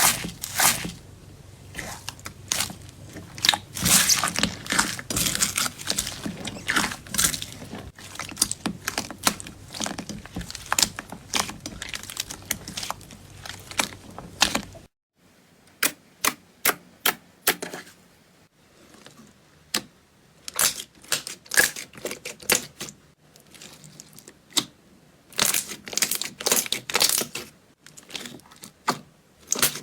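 Hands squeezing, stretching and poking slime, making a fast run of crackles and pops. About halfway through, the sound changes abruptly to sparser, sharper clicks and snaps.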